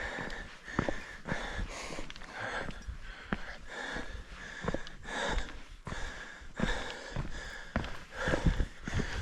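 A hiker breathing hard and close to the microphone, with repeated puffs of breath while climbing a steep trail, along with scattered scuffs and clicks.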